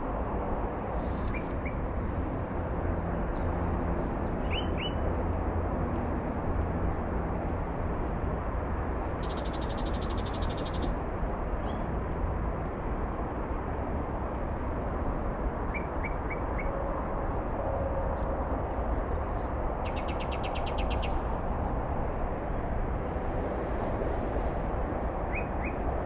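Small birds chirping a few times in short pairs and triples over a steady low rumble, with two brief buzzing trills, about ten and twenty seconds in.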